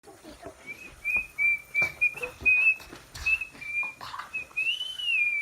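A person whistling a string of short notes at about one pitch, ending in a longer note that rises and falls, over scattered knocks and handling thumps.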